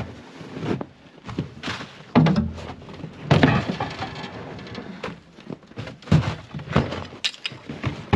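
Irregular knocks and thuds against an aluminium boat hull as a padded boat seat is pulled loose and shifted about.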